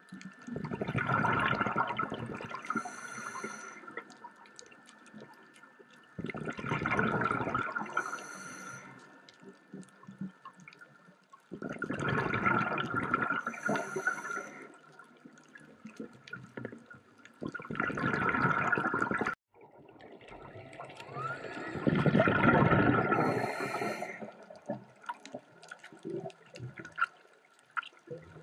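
Scuba diver breathing through a regulator underwater: about five breaths a few seconds apart, each a rush of air followed by a burble of exhaust bubbles. A faint steady high tone runs underneath.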